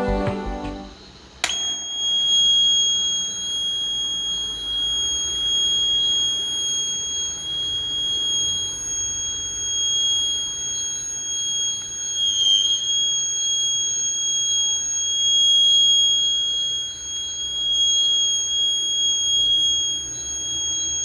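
Buzzer of a homemade BC547 transistor fire alarm circuit sounding one steady high-pitched tone: the alarm has been set off. It starts about a second and a half in and holds on, wavering slightly near the middle.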